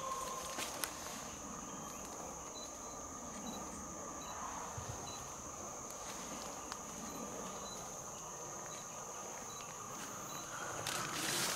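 Tropical rainforest insect chorus: a steady high-pitched drone, with a short high pip repeating about twice a second and a few faint clicks. A louder rustle comes in near the end.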